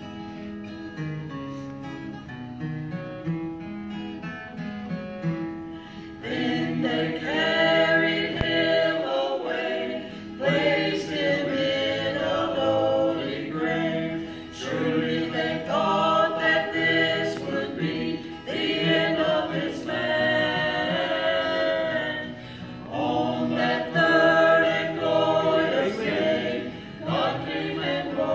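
An acoustic guitar plays alone for about six seconds, then a small mixed vocal group of two women and two men sings a gospel song in close harmony over the guitar, in phrases with short breaths between them.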